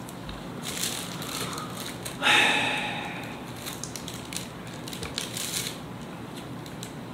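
Playing cards being handled: rustling and short clicks as hands of cards are picked up and sorted, with one louder crinkle about two seconds in.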